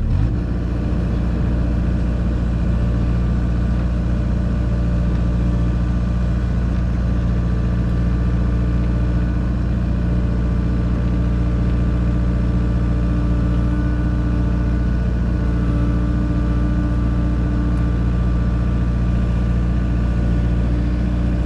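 Kubota KX057-4 mini excavator's diesel engine running steadily. Its note steps up right at the start, then holds an even speed throughout.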